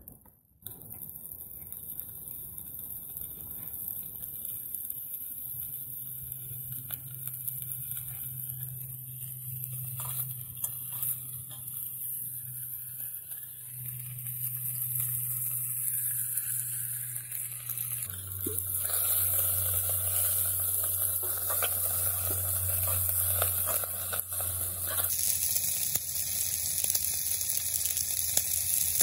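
Slices of smoked beef tongue sizzling in a small cast-iron skillet over a camping stove, a steady frying hiss with a low hum underneath and a few light clicks.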